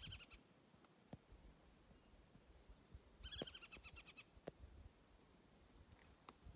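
A bird overhead calling faintly twice, about three seconds apart, each call a quick run of sharp, high repeated notes.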